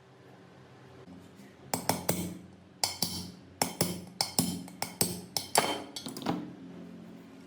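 A quick, uneven run of about fifteen sharp knocks, hard tool strikes on a part of the machine being restored, from about two seconds in until about six seconds in.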